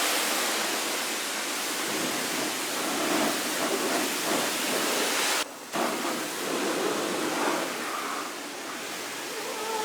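A velocity patching rig's nozzle blasting air and spraying material into a pothole: a steady, loud rushing hiss that drops out briefly about five and a half seconds in.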